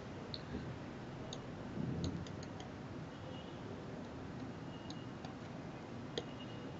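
A few faint, sharp clicks scattered irregularly over low room noise, including a quick run of several clicks about two seconds in.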